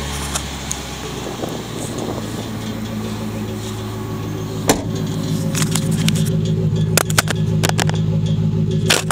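The 4.6 L V8 of a 1996 Ford Thunderbird LX idling steadily, a low even hum that grows louder in the second half. A few sharp clicks and knocks come over it.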